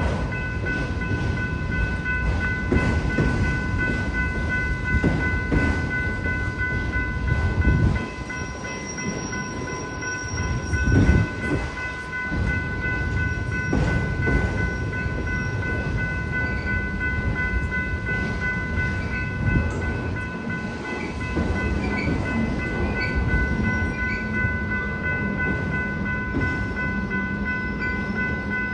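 Railroad crossing bell ringing steadily while a freight train rumbles past the crossing, with rolling wheel and car noise that swells now and then.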